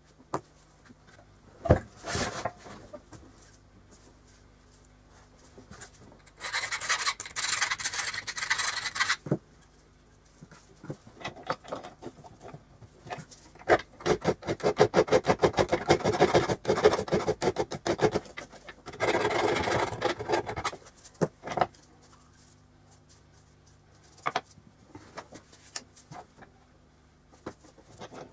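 A small hand file rasping on a metal piece clamped in a bench vise, in several runs of rapid back-and-forth strokes; the longest and loudest run comes about halfway through, with a few light knocks of handling between runs.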